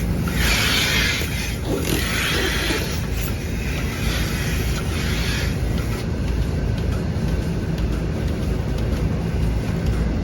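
Milking-parlour vacuum system running with a steady low drone, with three short hissing bursts in the first half.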